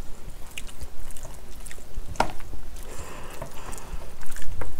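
Metal spoon stirring and scooping thick curry rice in a ceramic bowl: scattered clicks and scrapes of the spoon on the bowl, one sharper clink about two seconds in, with soft wet squishing of the rice and some chewing.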